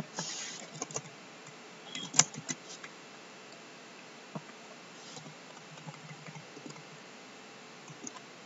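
Typing on a computer keyboard: scattered key clicks with pauses between them, one louder click about two seconds in.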